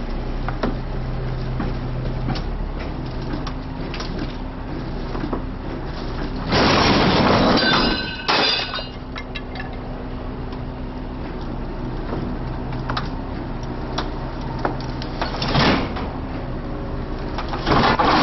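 A truck engine running steadily, with scattered clicks and knocks and two loud bursts of rushing noise, the longer one lasting about a second and a half.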